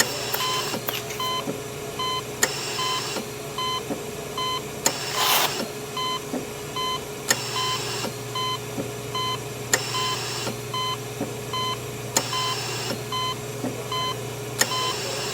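Hospital life-support equipment: a monitor beeping at a steady, regular pace over a constant machine hum, with a short hiss about every two and a half seconds.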